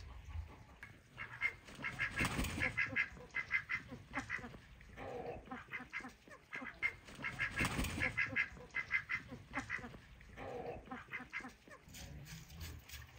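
Waterfowl such as geese calling in several bouts of quick, short repeated notes. Two louder bursts of noise come about two and eight seconds in.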